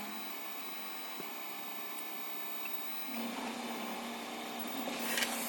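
MakerBot 3D printer running with its fans whirring while it heats; about three seconds in a steady low hum joins, and a brief hiss comes near the end.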